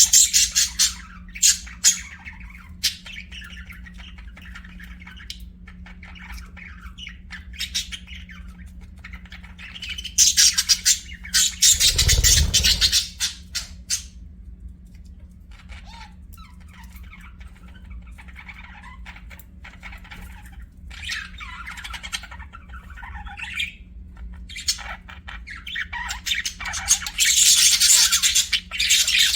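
Budgerigars chirping and chattering in loud, squawky bursts, with quieter twittering in between, over a steady low hum. About twelve seconds in there is a brief low rumble under the chatter.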